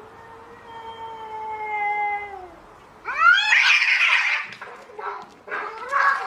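Angry cat yowling: one long steady call that falls off at its end, then a louder, harsher cry about three seconds in, followed by a few shorter cries.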